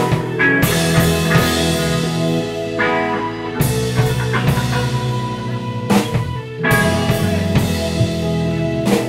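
Live band playing an instrumental funk jam: electric guitars over drum kit and bass, with cymbal crashes every few seconds.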